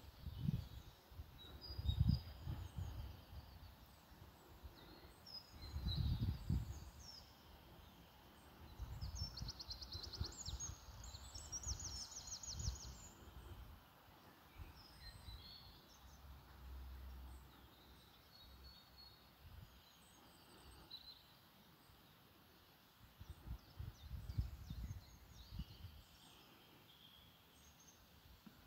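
Wind gusting on the microphone in irregular low buffets, the strongest about two and six seconds in. Small birds call and chirp from the trees throughout, with a rapid trilling song about nine seconds in, repeated just after.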